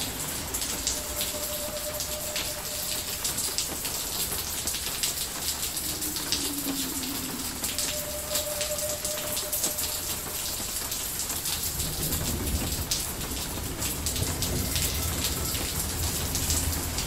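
Steady rain falling, with many individual drops ticking through a constant hiss. A faint held tone sounds twice, about a second in and again about eight seconds in, and a low rumble swells from about twelve seconds in.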